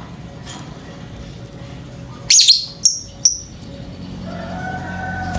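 Lovebird giving three sharp, shrill chirps in quick succession a little past halfway, the calls of a bird in breeding mood used as a lure. A steady humming tone swells in near the end.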